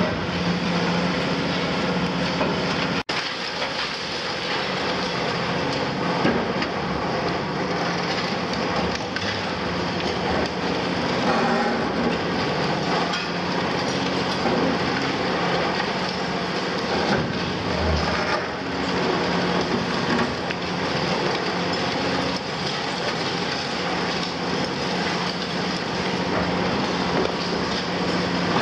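Cat 352F excavator's C13 diesel engine running steadily while concrete and building debris crack and crunch as the machine tears the structure down, with a momentary dropout about three seconds in.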